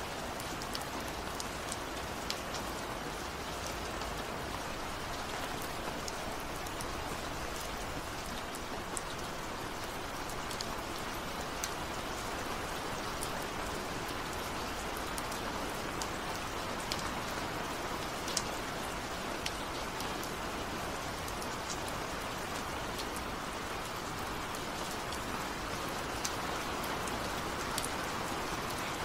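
Steady rain falling, an even hiss with scattered drops ticking sharply on a surface.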